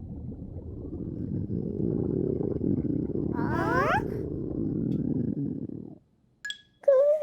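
A low, rough, purr-like rumble for about six seconds that stops abruptly. A small squeaky call slides down in pitch about halfway through, and a short squeak comes near the end.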